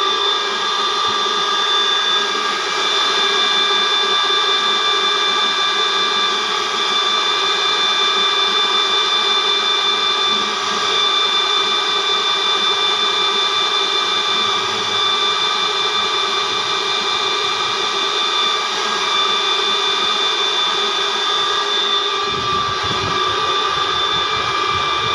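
Harrison M250 lathe running steadily, its spindle turning with a constant whine made of several high tones. A low rumble joins near the end.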